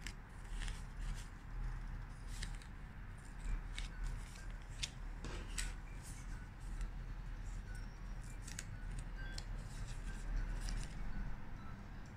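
Paper and film stickers being peeled off their backing sheets by hand, a run of scattered crackles and ticks as the sheets are handled.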